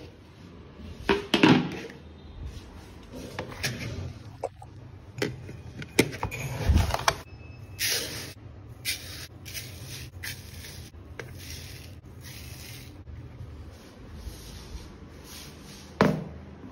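Granulated sugar being scooped with a small cup from a red plastic storage drum and poured into a plastic bowl: scattered short rustles of pouring grains and knocks of plastic lid and containers.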